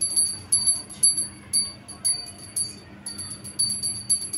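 Handheld puja bell rung repeatedly, its clapper striking a few times a second with brief pauses, giving a steady high metallic ring.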